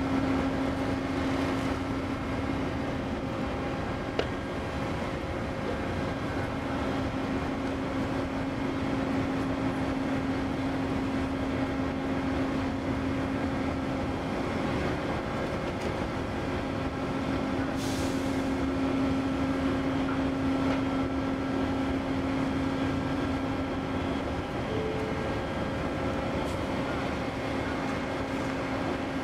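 Steady low mechanical hum with a constant droning tone from a cargo ship's deck crane machinery as it hoists a train car out of the hold, with a brief hiss about eighteen seconds in.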